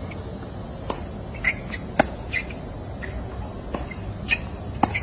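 Tennis rally: four sharp racket-on-ball strikes about a second apart, the one near the middle the loudest, over a steady high insect drone.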